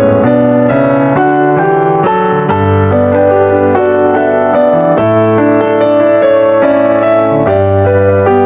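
Background piano music: a melody of single notes following one another at an even, gentle pace.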